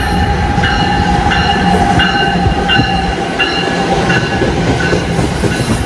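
Train running sound: a steady rumbling clatter with a held tone through it, and a short higher ringing note that repeats about every 0.7 seconds.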